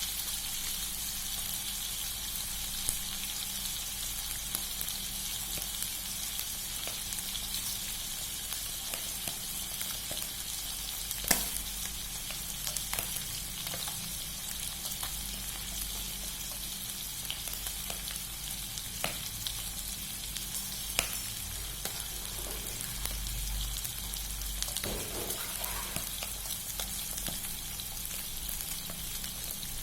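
Food frying in hot oil: a steady sizzle and crackle, with a few sharp clicks now and then, the loudest about a third of the way in.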